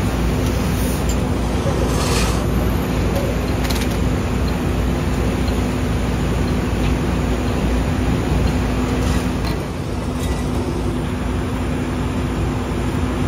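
Idling vehicle engines and city street traffic: a steady rumble with a constant low hum, and a few brief sharp noises about two, four and nine seconds in.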